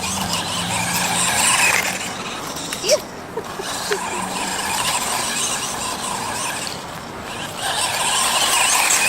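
Electric motor and gearbox of a 1:12-scale RC monster truck whining as it drives, mixed with tyre and chassis rattle noise, heard from an action camera mounted on the truck itself. The noise surges and eases with the throttle, with a couple of sharp knocks about three and four seconds in.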